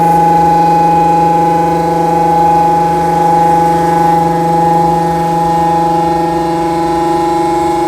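CNC milling machine running a programmed part: a steady, loud whine from the spindle and cutting tool, holding one pitch.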